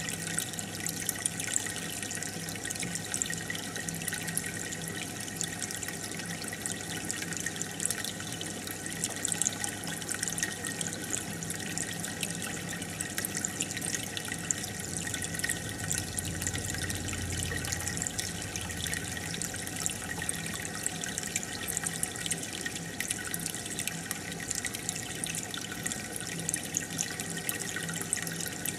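Aquarium water bubbling steadily from an air stone or filter, a constant fizzing trickle with a low steady hum beneath it.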